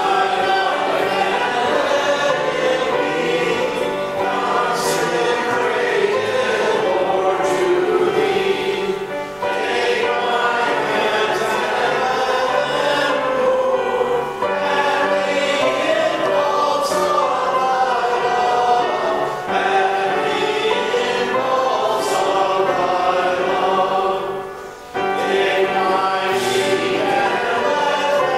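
Church congregation singing a hymn together, phrase by phrase, with short breaks between lines every few seconds.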